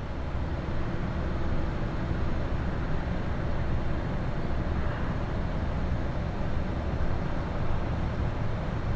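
Large ship's engines running, a steady low rumble and hum.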